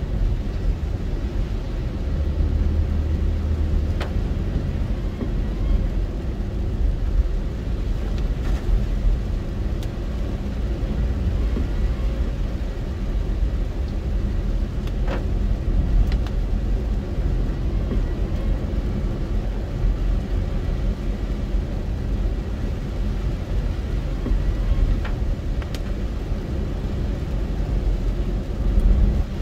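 A car driving on a wet road, heard from inside the cabin: a steady low rumble of engine and tyres, with a few faint single clicks.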